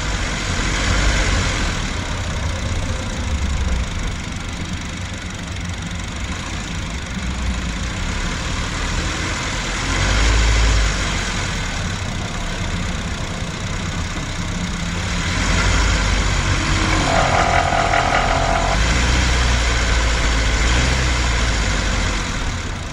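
Ninth-generation Honda Civic hatchback engine, heard from beside the engine, running under load with a rattle while the car climbs. The low rumble grows louder twice, a short while in and for a longer stretch in the second half. A brief steady tone sounds about three quarters of the way through.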